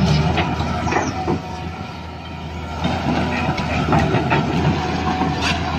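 Toy excavator's small electric motor and plastic gears running with a steady hum, with irregular clicks and rattles as the arm moves.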